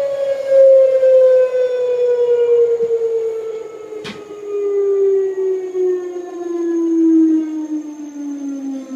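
LG washing machine slowing down from its spin: a whine with overtones that falls slowly and steadily in pitch as the drum loses speed, with a single sharp click about four seconds in.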